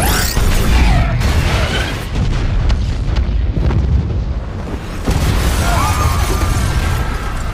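Film sound effect of a bomb explosion: a sudden loud blast out of silence, then a long rumble with sharp cracks throughout.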